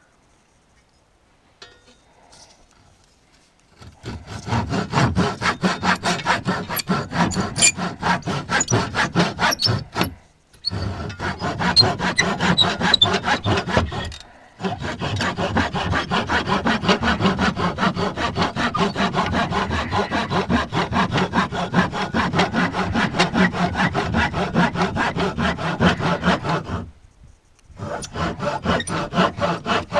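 Hand saw cutting through wood in fast, regular back-and-forth strokes. It starts about four seconds in and stops briefly three times before carrying on.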